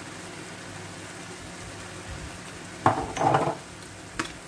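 Onions, peppers and minced meat sizzling steadily in a frying pan, with a loud wooden spatula scrape and knock against the pan about three seconds in.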